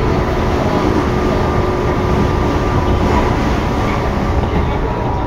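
Tobu 9000 series electric train running at steady speed, heard from on board: an even rumble of wheels and running gear with a faint steady hum of motor tones.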